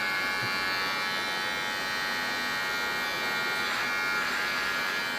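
Electric hair clippers running steadily while cutting hair on the side of a head down to zero.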